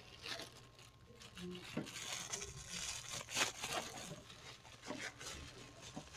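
Thin plastic crinkling and rustling with small irregular clicks as a disposable plastic cup is handled and taken out.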